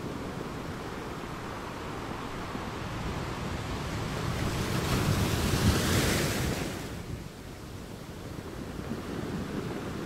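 Ocean surf washing ashore, a steady rushing noise. One wave swells to a loud hissing peak about six seconds in, then falls away quickly.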